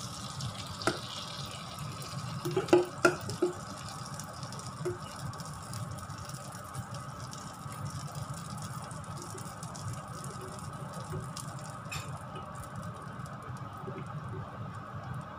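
Pancake batter being poured into a small frying pan of hot, foaming butter: a steady sizzle and hiss. A few sharp clinks come about a second in and around three seconds in, and another about twelve seconds in.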